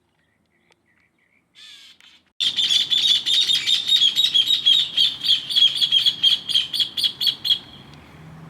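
A bird calling in a fast, even series of sharp chirps, about four or five a second, for roughly five seconds, starting a couple of seconds in after a short buzzy note.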